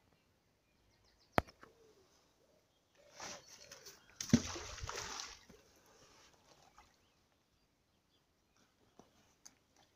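A sharp click about a second and a half in, then a splash just past four seconds in, with about a second of splashing after it: a magnet-fishing magnet landing in the river.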